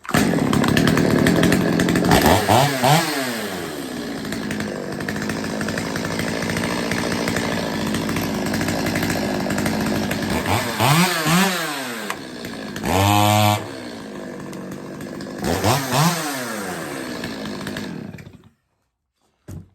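Stihl 025 chainsaw's two-stroke engine idling and revved up four times, once held briefly at full throttle, then shut off near the end. It runs cleanly after a carburettor tune: the low-speed circuit has been richened from slightly lean and the idle readjusted.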